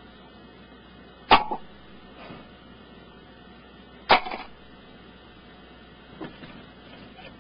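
Two sharp knocks about three seconds apart, each followed by a brief rattle, and a fainter knock near the end: a plastic computer backup-tape reel being handled and flung up against the ceiling.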